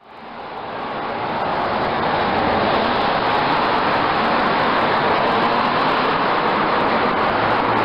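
Steady road traffic noise, fading in from silence over the first couple of seconds and then holding even.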